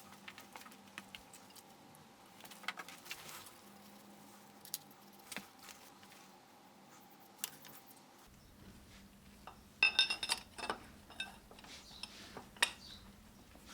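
Metal gearbox parts being handled by hand: scattered light taps and clicks, then a run of louder ringing metal clinks about ten seconds in.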